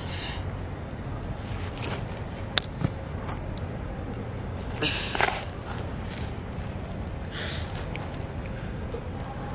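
A girl breathing hard in distress: a few short, loud breaths, about two seconds apart, over a steady outdoor rumble. Two sharp clicks come about two and a half seconds in.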